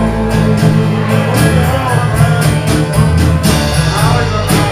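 Live band playing an instrumental passage between verses, with strummed guitars over a bass line in a steady rhythm.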